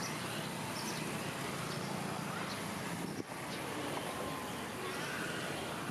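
Street traffic ambience: motor scooter engines running as scooters pass, with people's voices in the background.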